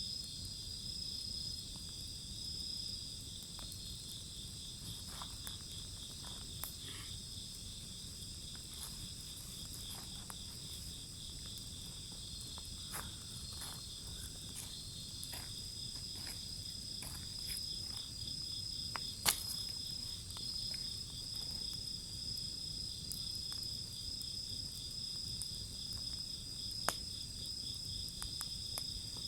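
Insects chirping steadily in fast pulsing trills, with scattered crackles and pops from a burning wood bonfire; one sharp pop stands out about two-thirds of the way through and another near the end.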